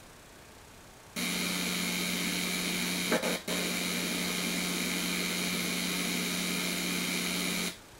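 A steady hiss starts about a second in. About three seconds in comes a short bang with a split-second cut-out: a hot water pressure washer's heating coil, superheated with its safety devices removed, bursting in a steam explosion.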